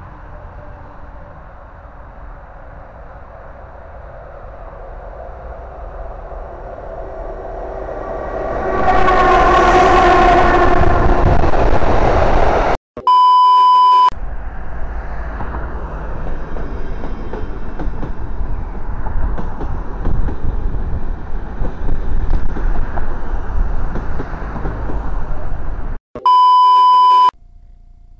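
An approaching train grows steadily louder and sounds its horn, a chord of several notes lasting about four seconds as it comes by. After a cut comes a steady high bleep tone of about a second, like a censor beep. Then about twelve seconds of train running noise, and a second identical bleep near the end.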